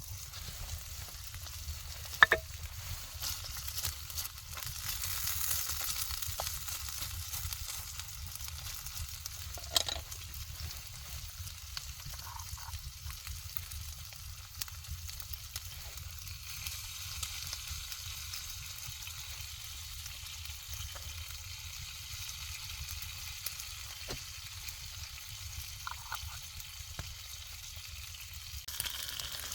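Food frying in a pan: a steady sizzle, with a sharp click about two seconds in and another near ten seconds.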